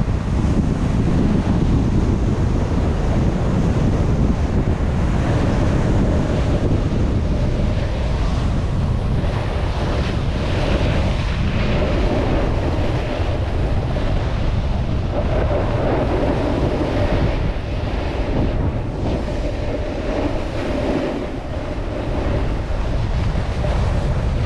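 Wind buffeting an action camera's microphone while descending a ski slope at speed, over a continuous hiss and scrape of edges sliding on packed snow.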